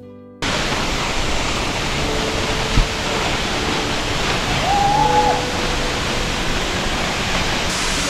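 Steady rushing noise of water falling at a partly frozen waterfall, with soft background music underneath.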